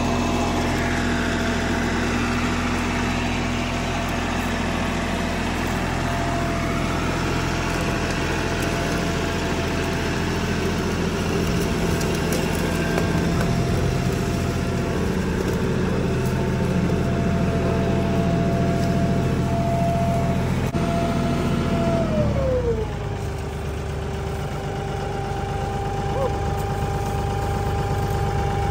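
Kioti compact tractor's diesel engine running steadily, then throttled back about three-quarters of the way through, its pitch falling smoothly to a lower idle.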